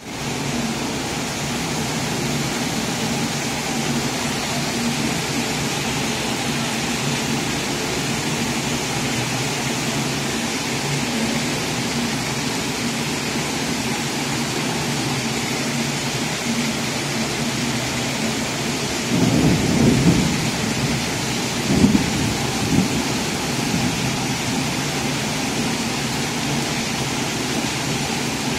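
Heavy rain pouring steadily, a continuous hiss. About two-thirds of the way through, two low rumbles of thunder swell up and fade.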